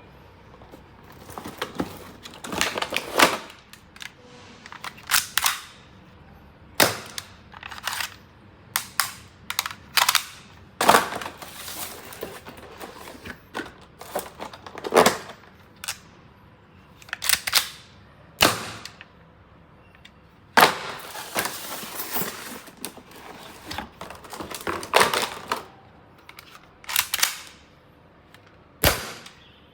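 Toy pistols being fired and worked: a long series of sharp snaps and clicks at irregular intervals, some single and some in quick clusters of two to four.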